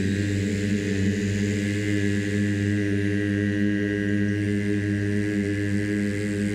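A man's voice holding one long, steady, low tone on the exhale: the sustained "xü" of the Taoist liver healing sound.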